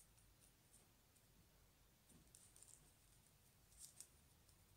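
Near silence, broken by a few faint soft clicks from hand-knitting with thin wooden skewer needles and yarn: one at the start, a few halfway through, and two about four seconds in.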